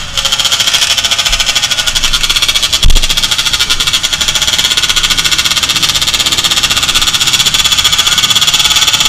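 A loud engine running close by at a steady, fast pulsing beat, with one sharp thump about three seconds in.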